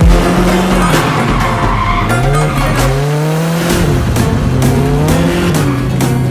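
Turbocharged Ford Thunderbird drift car's engine revving up and falling back again and again through a drift, with tires squealing.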